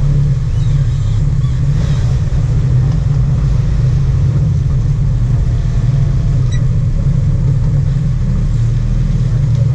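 Sport-fishing boat's engines running, a steady low rumble that holds throughout.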